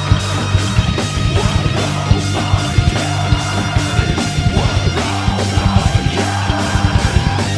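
Full rock band playing live in a heavy-metal style: distorted electric guitars, bass guitar and a drum kit, with fast, evenly driven drum hits.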